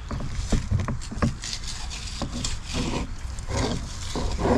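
Fillet knife cutting and scraping along a speckled trout on a cutting board, with irregular small knocks and rustles as the fish is handled.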